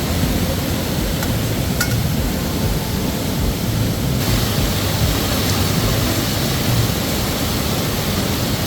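Steady rushing of a river, with a brighter hiss joining about four seconds in.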